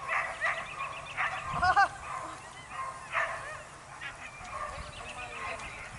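Dogs yipping and barking in short repeated calls, with the loudest run of high, rising yelps just under two seconds in.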